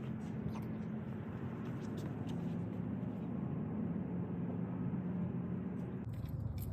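A car engine idling, a steady low hum with a faint noise bed; about six seconds in the sound turns brighter and noisier.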